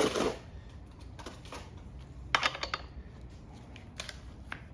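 A short burst of rustling right at the start, then scattered sharp clicks and clacks, with a quick cluster about two and a half seconds in: hard parts being handled on the bench.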